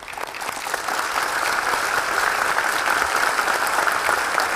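A roomful of delegates applauding, many hands clapping at once, swelling over the first second and then holding steady.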